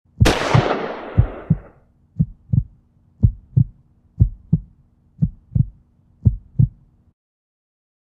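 A single shotgun blast with a decaying tail, followed by a heartbeat sound effect: six low double thumps about a second apart over a faint steady drone, cutting off abruptly near the end.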